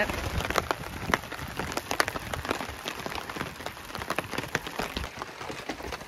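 Heavy rain pattering, with big drops dripping irregularly off a rain tarp. A low rumble under it drops away near the end.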